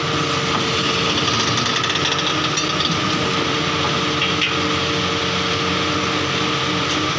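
Borewell drilling rig running: a loud, steady machine noise with a constant hum under it.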